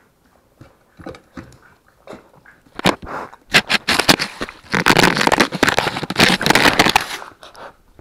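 Puppy chewing on an action camera right against its microphone: teeth crunching and clattering on the plastic housing. The crackling starts about three seconds in, comes thick and loud, and dies down near the end.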